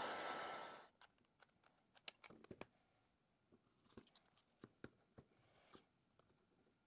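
Faint scattered clicks and taps of hands handling a 3D-printed TPU saddle cover and pressing it down onto its hot-glued saddle base. A steady hiss fades out within the first second.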